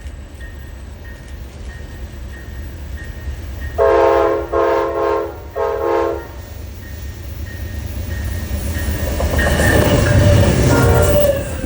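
A passenger train's air horn sounds three short blasts about four seconds in. The train's engine and wheels then grow steadily louder as it approaches, with clattering on the rails near the end.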